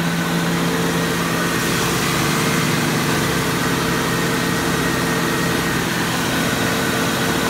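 Ford Mustang GT's 4.6L two-valve SOHC V8 idling steadily, with a constant hum and no change in speed. The engine is not yet warm, and it is running with the coolant expansion tank uncapped to bleed air from the refilled cooling system.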